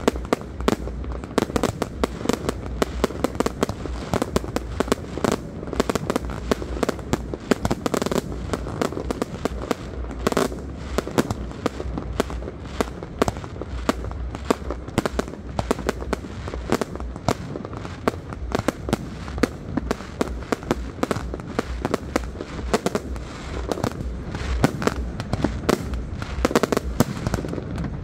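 A fireworks display in full barrage: aerial shells launching and bursting in rapid, overlapping bangs and pops, several a second, without a break.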